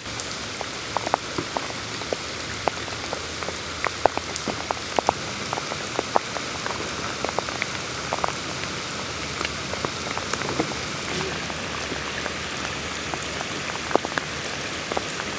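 Heavy rain falling on standing floodwater: a steady hiss dotted with many sharp little splashes of single drops.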